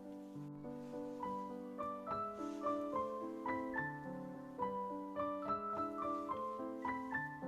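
Background piano music: a gentle melody of single notes over a soft, sustained lower accompaniment.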